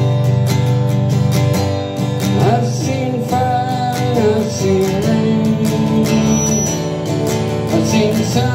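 Acoustic guitar strummed and picked in a steady accompaniment, with a harmonica in a neck rack playing long held notes that bend in pitch over it.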